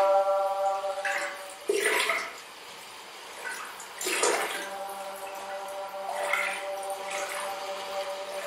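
Ambient music: a held drone note with its overtones, and swells of rushing, splashing noise about every two to three seconds.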